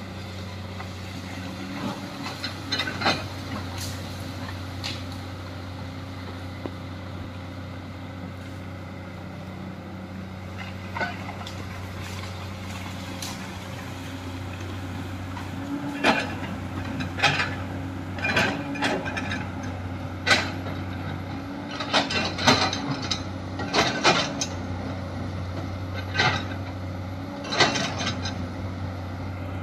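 Komatsu hydraulic excavator's diesel engine running steadily. From about halfway on, its note swells under load, and sharp clanks and knocks come every second or two as the bucket works the earth bank.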